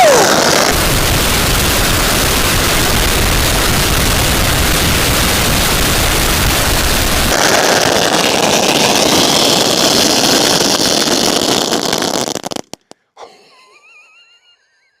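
A 16,000-shot roll of firecrackers going off in one loud, dense, unbroken crackle that cuts off abruptly about twelve and a half seconds in.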